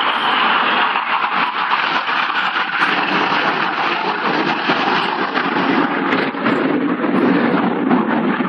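Red Arrows BAE Hawk jets' turbofan engines as the formation flies past, a steady loud noise that shifts lower toward the end as they move away.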